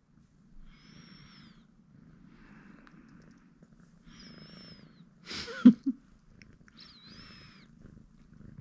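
A cat meowing several times in short, separate calls, with a louder, sharper sound about halfway through.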